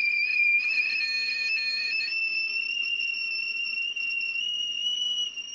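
Whistling kettle at the boil: one steady shrill whistle, slowly rising in pitch.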